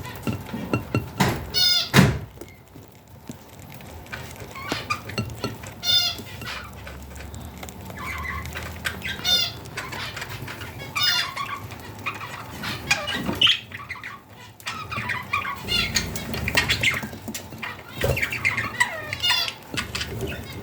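Budgerigars chirping and warbling in short bursts, with scattered small clicks and one sharp tap about two seconds in.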